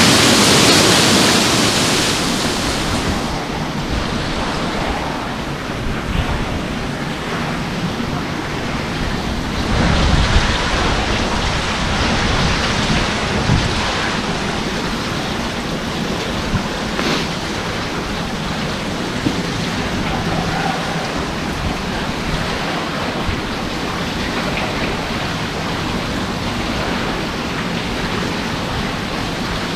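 Water rushing and splashing onto a wooden overshot waterwheel's buckets, a steady noise that is louder and hissier for the first three seconds, then a duller, even rush. A few scattered knocks come through it.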